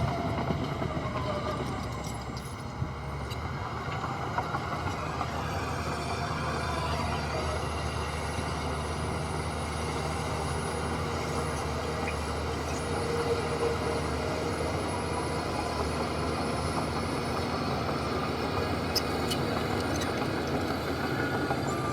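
Heavy earthmoving machinery running steadily, a deep engine note with a grinding clatter on top.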